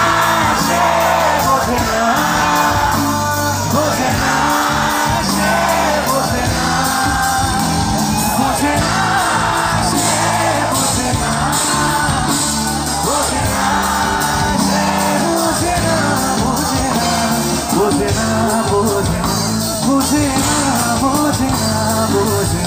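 Live band performance over a PA: a male singer singing into a microphone, backed by electric guitars, keyboards and drums, with shouts from the crowd.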